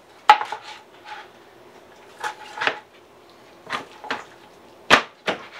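Large kitchen knife chopping barbecued chicken breast into chunks, knocking on a plastic cutting board: about seven sharp knocks, mostly in pairs.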